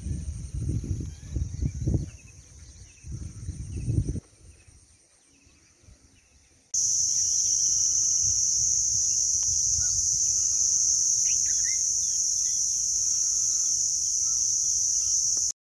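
Insects buzzing in one steady, high-pitched drone, with scattered short bird chirps. For the first few seconds wind gusts rumble on the microphone. About seven seconds in, the drone jumps much louder and holds.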